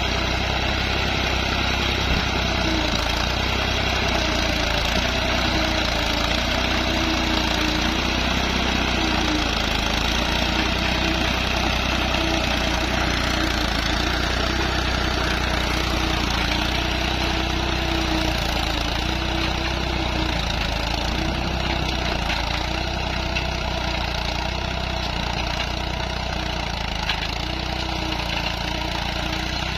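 Fiat 480 tractor's three-cylinder diesel engine running steadily under load while pulling a disc harrow through a field, with a wavering engine tone. It grows slightly fainter near the end as the tractor pulls away.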